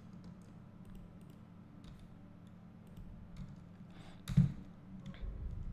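Faint, scattered computer mouse clicks and keyboard key presses over a low steady hum, with one louder thump about four seconds in.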